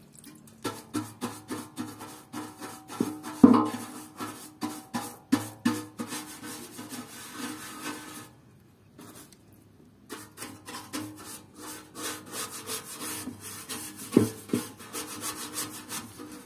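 Bristle paintbrush scrubbing caustic-soda paint stripper back and forth over a steel motorcycle fuel tank to lift the old paint: quick rhythmic scratchy strokes that pause for about two seconds midway. A sharper knock sounds about three and a half seconds in and another near the end.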